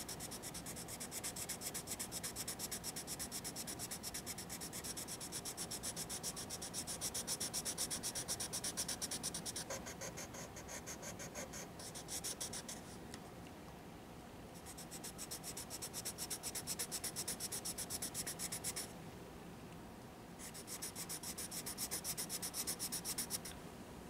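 Prismacolor Premier Colorless Blender pencil scratching over layered colored-pencil wax on sketchbook paper in quick, even back-and-forth strokes, blending the yellow and blue together. The strokes stop briefly a few times.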